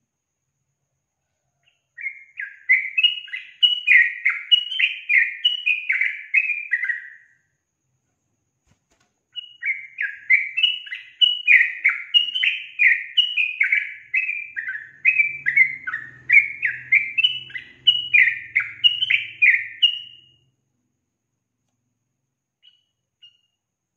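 Yellow-vented bulbul (trucukan) singing: long runs of quick, rising and falling whistled notes. The first run lasts about five seconds, and after a short pause a second one lasts about eleven seconds.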